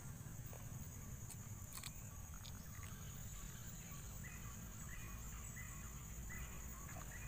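Steady high-pitched drone of insects, with a few faint clicks and a low background rumble.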